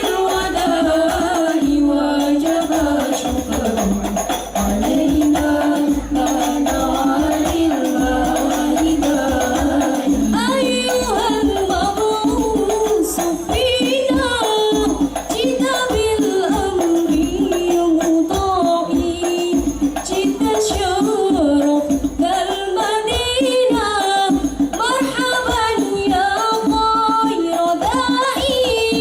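Banjari sholawat performance: voices singing a winding devotional melody over rebana frame drums beating a steady, busy rhythm.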